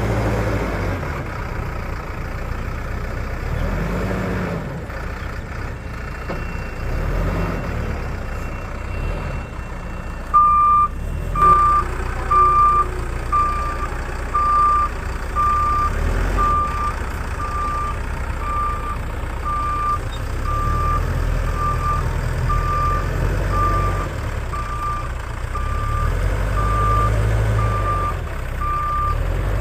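Heavy diesel engine of a backhoe loader running and revving up and down under load. About a third of the way in its reversing alarm starts, beeping about once a second.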